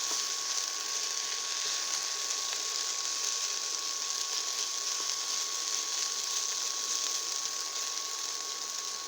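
Green peppers stir-frying in a pan: a steady sizzle, with a faint constant high-pitched tone underneath.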